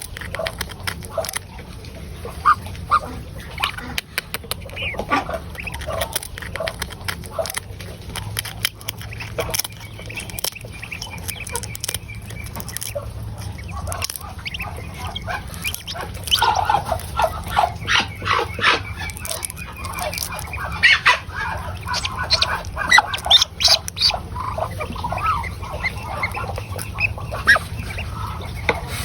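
Ducks and chickens calling in a farmyard flock: a steady scatter of short quacks and clucks, growing into a dense, loud run of calls in the middle, over a low steady hum.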